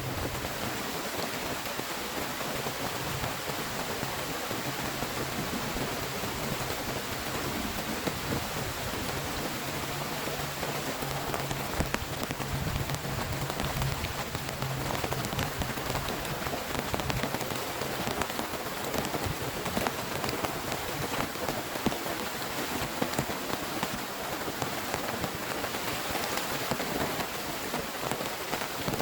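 Heavy rain falling steadily, with the ticks of single drops striking a surface close by. A low rumble sits beneath it through about the first half.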